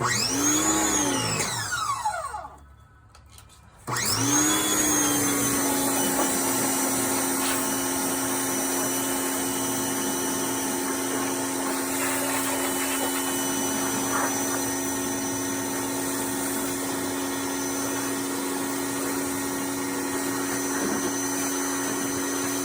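Power washer motor spinning up, winding down after about two seconds, then starting again about four seconds in and running at a steady pitch while spraying.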